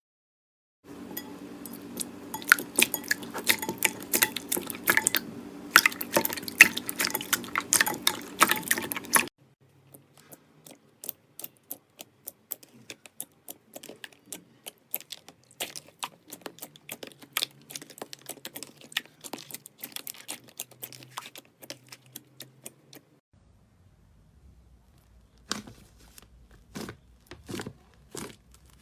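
Slime being squeezed and pressed by hand: fast, irregular wet clicks and crackling pops. They are dense and loud for the first third, much quieter through the middle, and sparser near the end.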